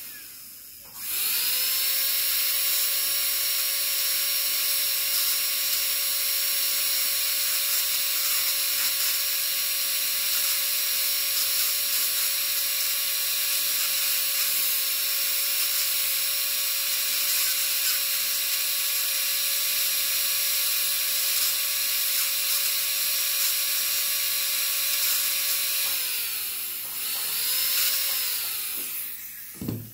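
Contra-angle dental handpiece fitted with an inverted-cone bur, cutting a plastic practice molar: a steady whine over a hiss. It winds up about a second in and holds speed, then winds down near the end, revs briefly once more and stops.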